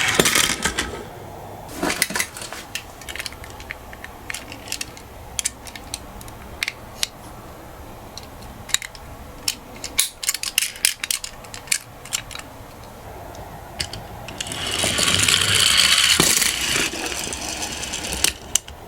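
Toy minicars clattering: scattered clicks and taps of small hard toy cars, and a rolling rush of wheels running down a slope, briefly at the start and again for about two seconds near the end.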